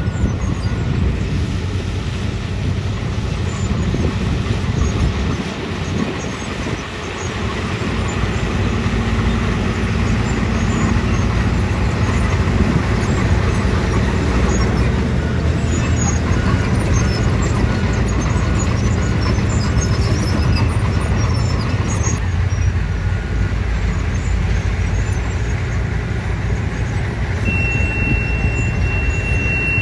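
Soil compactor's diesel engine running steadily under load, a continuous heavy mechanical rumble. Near the end a steady high-pitched whine comes in over it.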